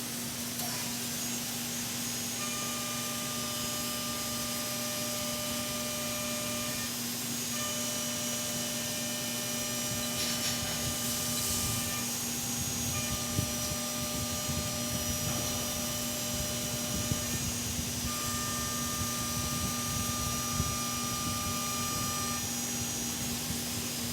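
CNC milling machine running, a steady hum under a whine of several steady tones that cut out briefly and come back every few seconds.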